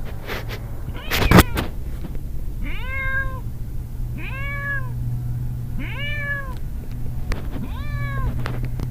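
Hairless cat meowing four times, evenly spaced, each meow a long call that rises and falls in pitch. A loud thump about a second in.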